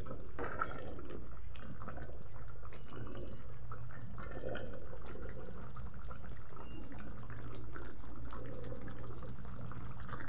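Tomato-sauce chicken stew bubbling at a simmer in a pan: a steady stream of small wet pops and crackles over a steady low hum.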